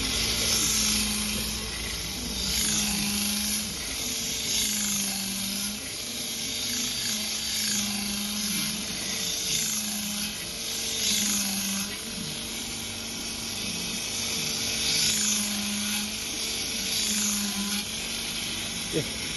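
A 6-inch bench grinder with a sanding band attachment, running with a steady motor hum while a hoof knife blade is ground against the band to shape the edge. The hum sags slightly every second or two, and a grinding hiss rises and falls with it as the blade is pressed on and eased off.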